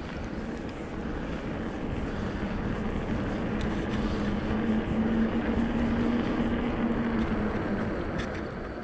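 Electric mountain bike ride on a trail: steady rolling noise of the tyres with wind on the microphone, and a steady low hum through the middle that grows louder and then eases near the end.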